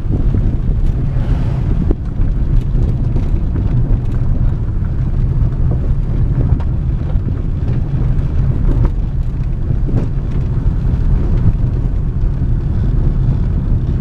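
Car driving along a dirt and gravel road, heard from inside the cabin: a steady low rumble of tyres and engine with a few light ticks. An oncoming SUV passes about a second in.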